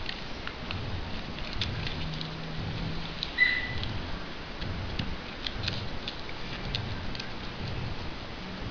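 Foil-backed origami paper crackling and clicking as it is folded and creased by hand, in many small, light crackles. A brief high chirp about three and a half seconds in.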